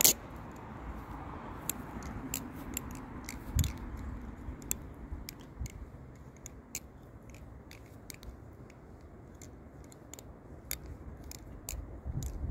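Butterfly knife (balisong) spun through rollovers: many light, irregular clicks as the handles and blade knock together, with one duller knock about three and a half seconds in.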